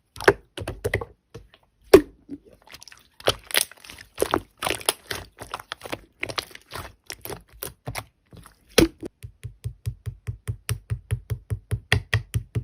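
Slime being squeezed and poked by hand, giving a run of sharp crackling clicks and pops. From about two-thirds of the way in, the clicks settle into an even rhythm of about four or five a second.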